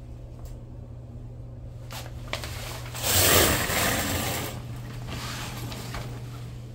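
A shower curtain pulled aside by hand, a rustling, scraping rush lasting about a second and a half near the middle, over a steady low hum.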